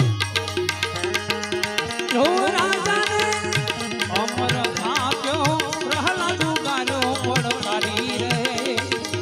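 Gujarati bhajan music with tabla keeping a steady rhythm. From about two seconds in, a melodic line slides and wavers in pitch above it.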